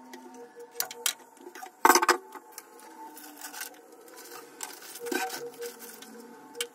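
Clicks and knocks of cookware and utensils being handled, with a short loud clatter about two seconds in, over a faint steady hum.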